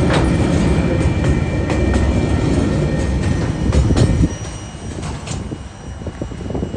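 Freight train wagons rolling past over the rails: a heavy rumble with sharp clicks of wheels over the rail joints. The rumble drops off suddenly about four seconds in, leaving a fainter rolling sound with a few scattered clicks.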